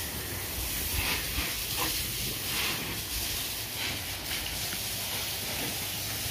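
Water spraying from a hose nozzle onto a car's body during a wash: a steady hiss that surges briefly a few times as the spray moves over the panels.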